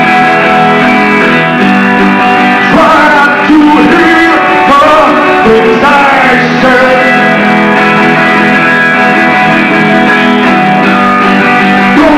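Acoustic guitar strummed through a song while a man sings, his voice sliding in pitch from about three to six seconds in.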